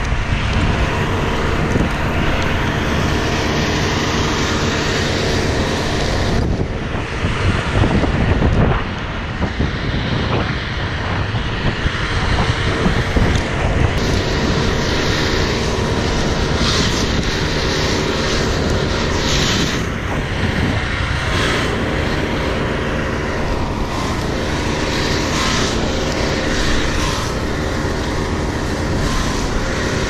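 A small engine drones steadily at an even speed.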